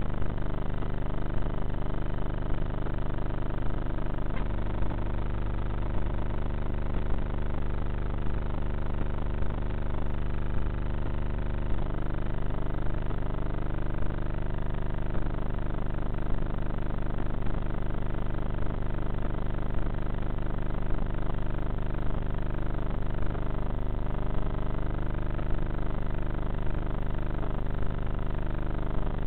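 Electric motor and propeller of a Bixler RC foam plane running in flight, with wind rush, heard through the onboard camera's microphone; the pitch rises and falls a few times as the throttle and airspeed change.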